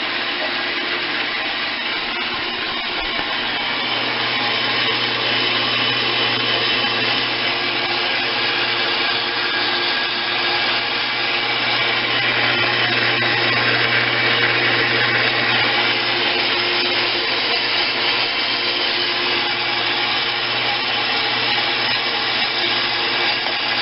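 Bandsaw running with its blade cutting slowly through a hardened-steel PTO shaft extender: a steady hiss over a low motor hum, growing a little louder a few seconds in.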